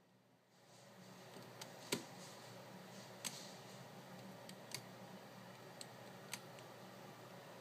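Faint clicks and ticks of an X-Acto knife blade cutting a sticker on a puzzle face, about six sharp ticks spread irregularly through it, the loudest about two seconds in, over a low hiss.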